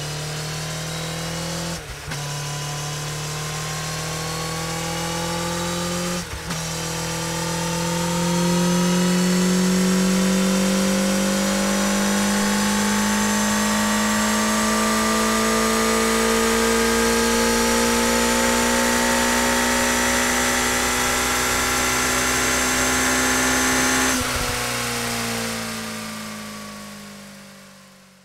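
Suzuki Hayabusa inline-four accelerating hard through the gears: two quick upshifts in the first few seconds, then a long steady pull in sixth gear with the engine note slowly rising in pitch. About 24 seconds in the throttle closes and the note drops and fades away.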